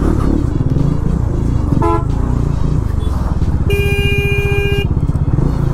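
Motorcycle engine running at low speed in slow traffic, a steady low pulsing, with a short horn beep about two seconds in and a longer, steady horn blast of about a second near four seconds in.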